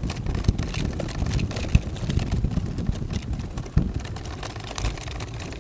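Wind buffeting the microphone in uneven gusts, with light clicking and rattling over it.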